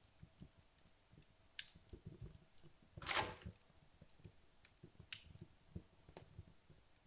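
Wood logs burning low in a fireplace: sparse, quiet crackles and pops, with one louder, longer hissing crackle about three seconds in.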